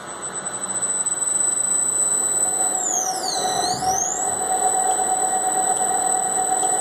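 Industrial washer extractor starting up: its motor drives the V-belt and drum pulley up to speed, the running sound growing louder over the first second or so. A steady whine comes in about a third of the way through, and a high thin tone swoops down in pitch and back up around the middle.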